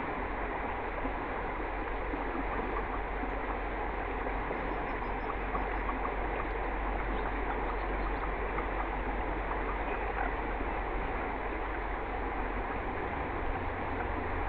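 Shallow river water flowing steadily, an even rushing and trickling, picked up by a trail camera's microphone.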